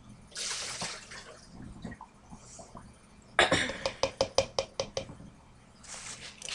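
Leftover water from a cup being dumped out with a short splash, then a quick run of sharp clinks and knocks. A steady rubbing, scraping noise starts near the end.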